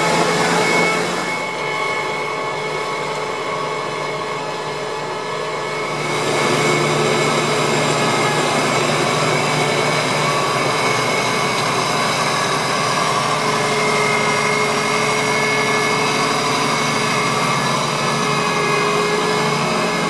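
Ploeger AR-4BX self-propelled potato harvester running: a steady engine and machinery noise with several steady tones. It is a little quieter from about a second in until about six and a half seconds, then steady again.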